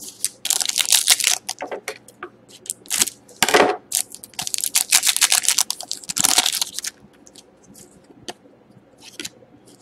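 Foil wrapper of a 2011-12 Panini Titanium hockey card pack crinkling in bursts as it is handled and opened, then softer clicks of the cards being slid apart over the last few seconds.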